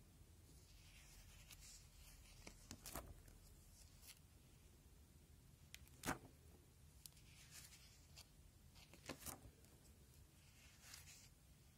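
Faint rustling and crinkling of plastic sheet-protector pages in a display folder as they are turned by hand, with three soft slaps about three seconds apart as pages land.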